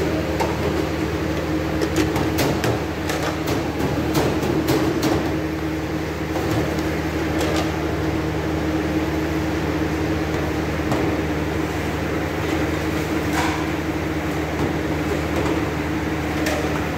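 A steady mechanical hum with a constant low tone, and scattered clicks and knocks, several between about two and five seconds in.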